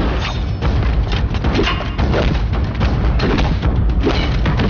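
Dramatic action music with a heavy low pulse, overlaid by repeated thuds and knocks from a hand-to-hand bayonet fight.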